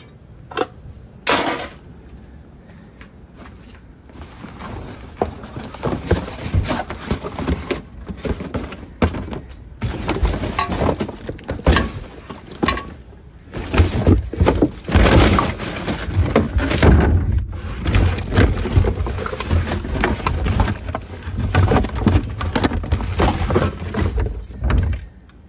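Rummaging through trash in a garbage bin by hand: irregular clattering and knocks of containers and garbage being moved, with two sharp knocks near the start.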